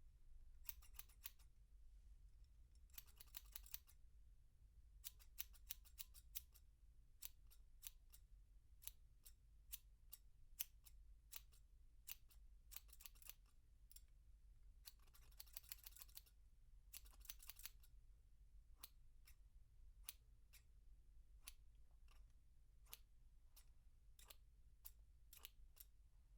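Scissors cutting, heard at medium distance: a long series of sharp snips, some single and spaced a second or so apart, others in quick runs of several snips close together.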